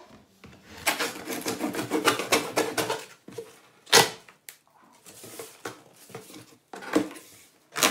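A knife slitting the packing tape and cardboard of a large cardboard shipping box: a rapid run of rasping scratches for about two seconds, then a sharp knock about four seconds in and a few more knocks and scrapes as the box and its flaps are handled.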